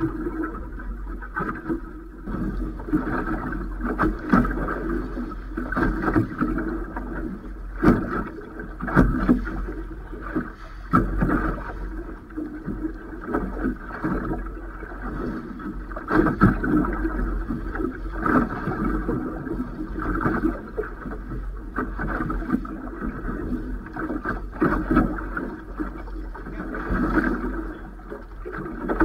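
Water slapping and sloshing against the Robalo 24's hull as the boat rocks in a chop, coming in irregular surges with sharp slaps every second or two, over a steady low rumble.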